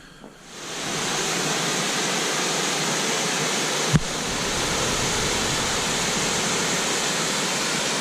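Steady rushing of water pouring over Gooseberry Falls, fading in over the first second, with a single brief thump about four seconds in.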